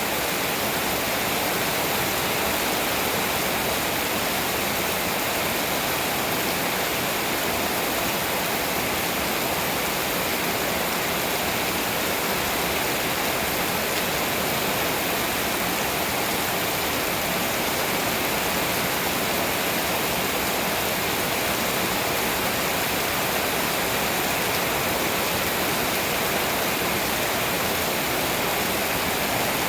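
Heavy rain pouring down in a storm, a steady unbroken hiss.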